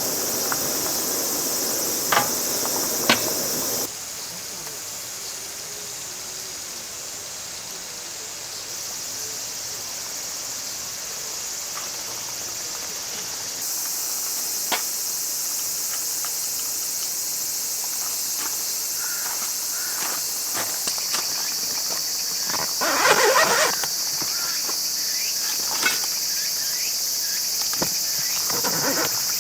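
Chorus of autumn crickets and other insects chirring steadily at a high pitch, with a few short clicks and a brief rustle about twenty-three seconds in.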